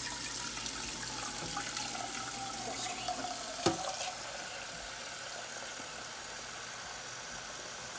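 Kitchen tap running warm water into a saucepan as it fills, a steady hiss with a faint tone sliding slowly down in pitch over the first half. A single sharp knock comes about halfway through.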